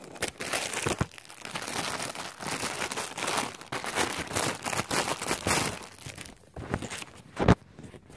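Clear plastic packaging bag crinkling and tearing as it is pulled open by hand around a foam squishy, in dense irregular rustles for about six seconds. Near the end comes one sharp knock from a phone case.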